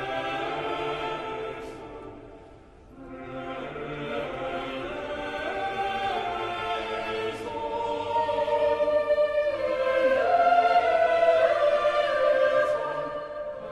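Church choir of boy trebles and men singing, with a short break in the sound about three seconds in; the singing grows louder in the second half.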